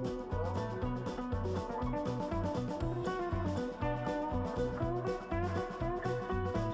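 Background music: guitar-led instrumental with a steady bass and drum beat.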